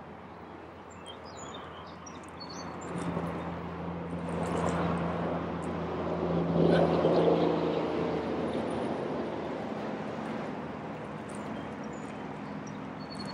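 An engine passing by: a steady hum that swells to its loudest about seven seconds in and then fades away. Faint bird chirps come and go at the start and near the end.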